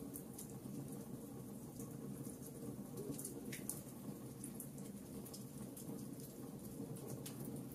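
Logs burning in a fireplace: a steady low rumble of flame with irregular crackles and pops.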